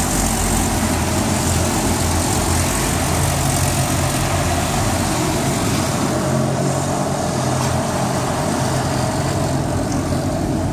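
Automatic car wash heard from inside the car: a steady rush of water spray hitting the body and windows, with a low hum underneath.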